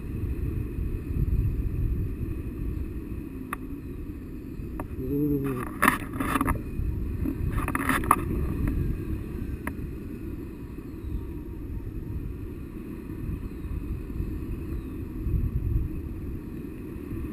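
Wind buffeting a camera microphone in flight under a tandem paraglider: a steady low rumble, with two short bursts of rustling about six and eight seconds in.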